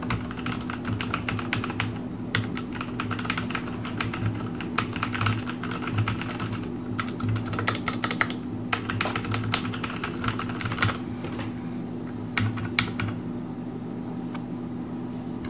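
Fast typing on a Ducky One TKL mechanical keyboard with Cherry MX Brown tactile switches: a dense clatter of key strokes with a few short pauses, thinning near the end. A low steady hum runs underneath.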